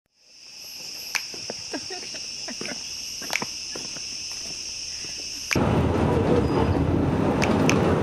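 A rainforest insect chorus fades in: a steady high shrill drone, with a few sharp clicks and short chirps over it. About five and a half seconds in it cuts abruptly to a louder steady rumble and hiss of riding in a moving vehicle.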